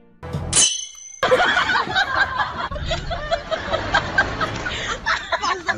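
A short high sliding sound, then from about a second in several people laughing and snickering, a laugh track that cuts off abruptly at the end.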